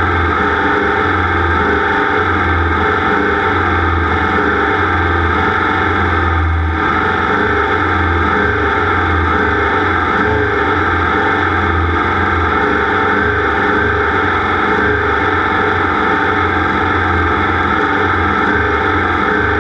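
A racing machine's engine held at high revs, loud and steady throughout, heavily distorted by the onboard camera's overloaded microphone, with a brief dip about two thirds of the way through the first half.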